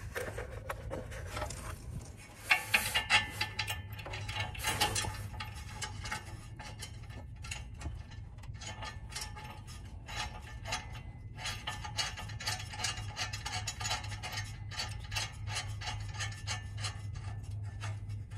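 Small metal clicks and scrapes of a nut and bolt being threaded by hand onto a catalytic converter's exhaust flange, in short clusters and then a denser run of clicking in the second half.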